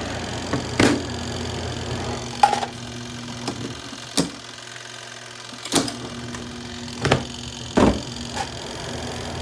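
Small twin-tub washing machine's electric motor humming. It stops a little over two seconds in and starts again about three seconds later, with several sharp knocks and clicks scattered through.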